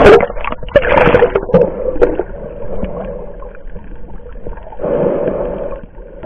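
Muffled water sloshing and bubbling against an action camera's waterproof housing as it breaks and dips under the sea surface, in rushing surges with small clicks, strongest at the start, about a second in, and again near the end.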